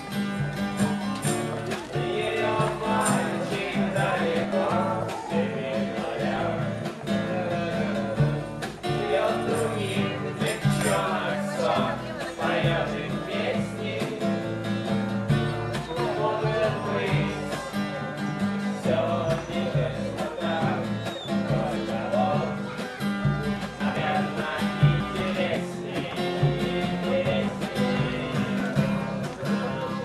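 Music: a song with plucked guitar and singing over a steady bass line.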